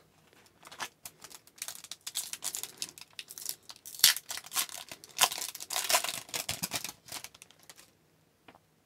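Foil hockey card pack wrapper crinkling and tearing, with cards rustling and clicking as they are handled: a run of short, sharp rustles that stops about a second before the end.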